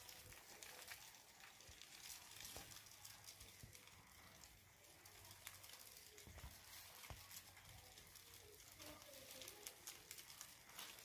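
Dubia roaches eating shredded carrot and crawling over cardboard egg crate: faint, irregular crackling and ticking.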